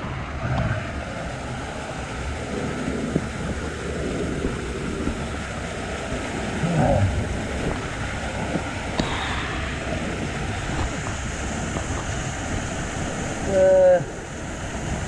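Water pouring down in a steady rush, splashing close by. A person gives a short loud shout near the end.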